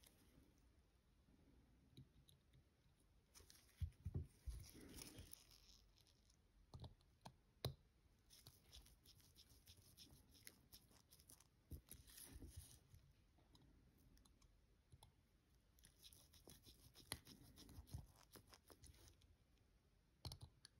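Near silence with faint, scattered clicks and short scrapes of small watchmaking tools on a watch movement as a bridge is fitted and secured, the loudest clicks about 4 and 7.5 seconds in.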